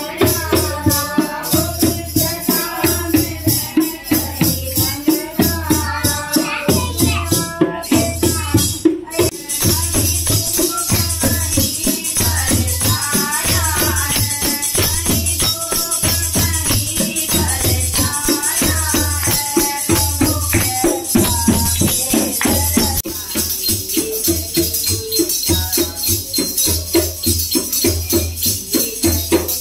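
Women's voices singing a devotional bhajan over a dholak beating steadily about once a second, with jingling percussion keeping time throughout.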